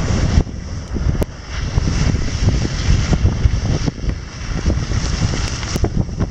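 Gusty wind buffeting the microphone, over the rush of river water as a Suzuki Grand Vitara SUV splashes out of a shallow ford and drives up onto wet gravel.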